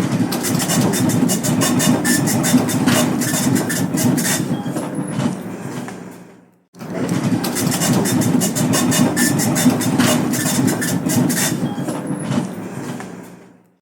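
Dot matrix printer printing: the print head's dense, rapid rattle over a low machine hum. It comes in two runs of about six and a half seconds, each fading out before a short break about halfway through and again at the end.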